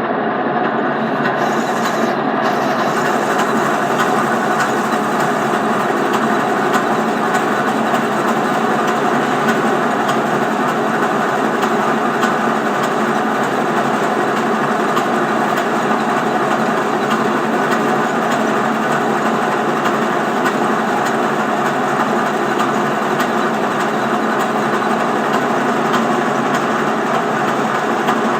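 Centre lathe running steadily while its tool makes a facing cut across the end of the workpiece, with a higher hiss joining about two seconds in.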